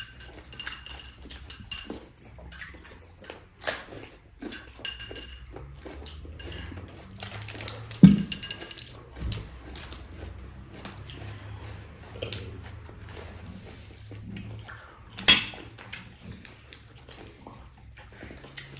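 Mealtime eating sounds: cutlery and dishes clinking and scraping in scattered short clicks, with chewing and handling of food. Two louder knocks stand out, about eight and fifteen seconds in.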